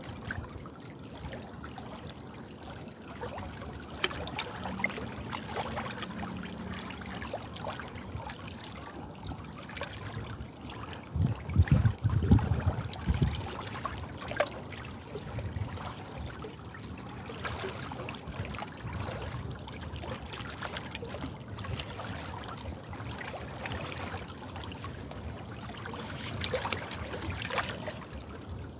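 Running water trickling and splashing, with many small irregular droplet sounds. A louder low rumble lasts about two seconds near the middle.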